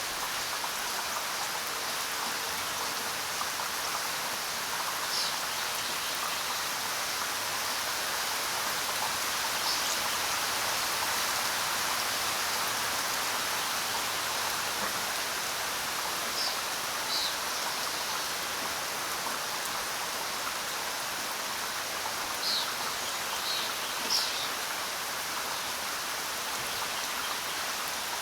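Steady rain falling on the ground, an even hiss with a few sharper individual drop hits scattered through, the loudest about three-quarters of the way in.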